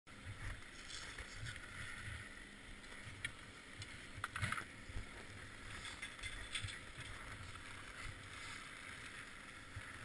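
Faint, muffled wind rumble and gear handling picked up through a helmet camera's sealed housing, with a few short clicks and scrapes of skis and poles on packed snow about three to four and a half seconds in.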